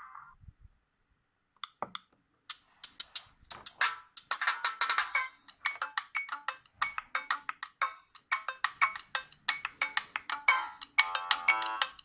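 Sony Ericsson W580i mobile phone playing its ringtones through its small built-in speaker. One ringtone fades out, a couple of faint clicks follow, and about two and a half seconds in the next ringtone starts: a fast electronic tune of short, quick notes, several a second.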